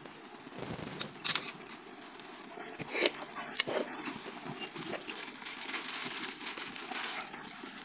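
Close-miked eating sounds: chewing and mouth noises, with a few sharp crunches.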